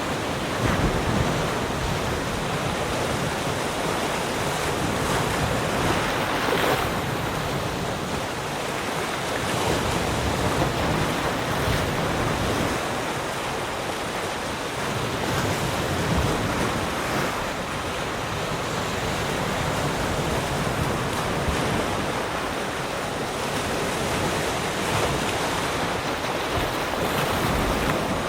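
Sea surf: waves breaking and washing on the shore in a continuous rush that swells and eases every few seconds, with some wind on the microphone.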